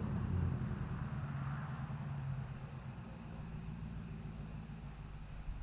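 Crickets chirping steadily, with a higher pulse about twice a second, over the low rumble of a pickup truck fading away into the distance.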